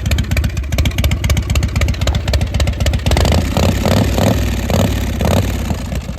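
Harley-Davidson motorcycle's V-twin engine running loud and close, its firing beat fast and even. From about three seconds in, a string of short pulses rises above it for a couple of seconds.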